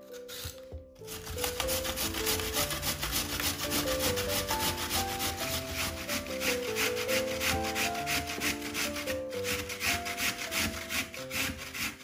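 Lotus root being grated on a stainless steel box grater: quick, even rasping strokes that start about a second in and keep a steady rhythm, with a soft piano melody underneath.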